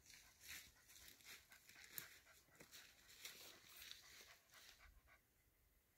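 Faint, irregular rustling and crunching in dry fallen leaves, with one sharper snap about two seconds in, dying away a little after five seconds.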